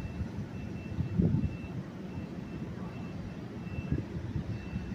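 NJ Transit electric push-pull commuter train, with an ALP-46A locomotive pushing from the rear, pulling slowly out of the station: a low, uneven rumble with a louder thump about a second in.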